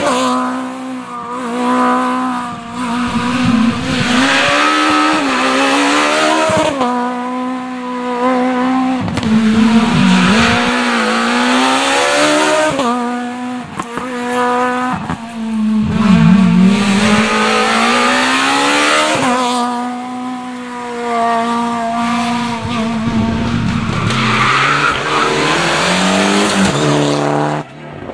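Rally car engines at full throttle, revving hard and repeatedly climbing and dropping in pitch through gear changes and braking for corners.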